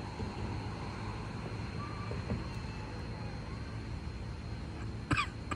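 Steady low background rumble with a thin, constant high whine. A brief, sharp, chirp-like sound comes near the end.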